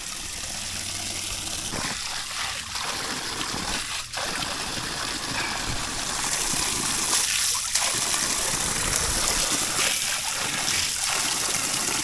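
Water pouring steadily from a brass tap on an outdoor stone fountain left running open, splashing into the stone basin below. The splashing grows louder about halfway through.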